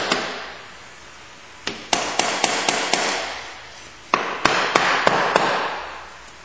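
A soft-faced mallet tapping on the GY6-type engine's CVT cover to break it free from its gasket. There is one tap at the start, then two quick runs of five or six light taps, about three to four a second, around two and four seconds in.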